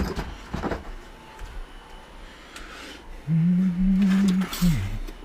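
A couple of knocks as parts are handled, then a man humming a low note for just over a second, ending on a short note that drops in pitch.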